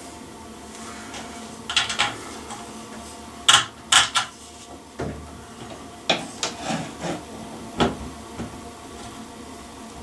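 Irregular plastic clicks and knocks as a round LED ceiling light fitting is handled and pressed against the ceiling, with a screwdriver knocking against it, while its fixing screws are lined up; the two sharpest knocks come about three and a half and four seconds in.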